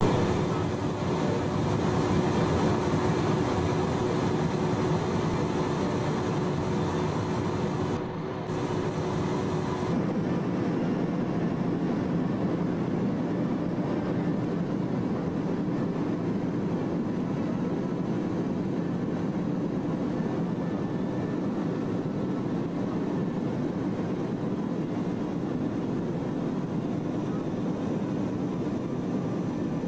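Jet airliner cabin noise inside a Boeing 737 in flight: a steady rush of engines and airflow with a low hum, dipping briefly about eight seconds in, the hum's pitch shifting a couple of seconds later.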